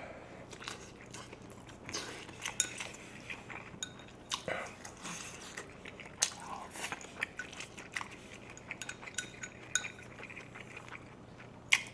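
Close-miked eating sounds: metal chopsticks clicking against dishes at irregular moments, amid wet chewing and biting of grilled pork belly.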